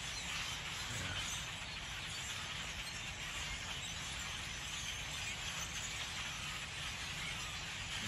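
A large flock of migrating birds perched in a bare tree, many calling at once in a steady, dense chatter.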